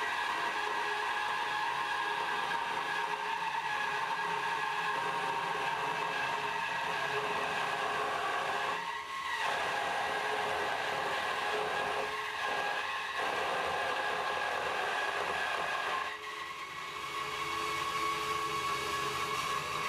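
Bandsaw resawing a board of oak, a steady machine whine from the motor and blade under load. The sound dips briefly about nine seconds in and again around sixteen seconds, and the whine rises slightly in pitch at the very end.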